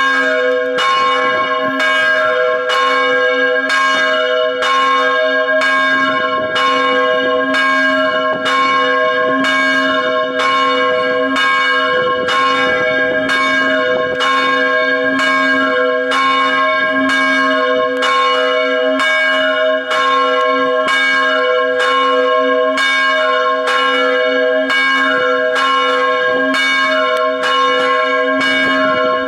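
Church bell ringing with evenly spaced strokes, about three every two seconds, each stroke ringing on into the next so that the bell's tone never dies away.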